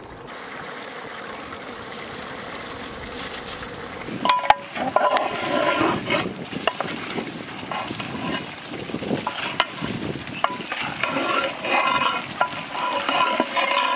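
A metal ladle stirring a thick, simmering tomato curry in a large metal pot, scraping and clicking against the pot. For about the first four seconds only the curry's steady simmering hiss is heard, then the stirring starts.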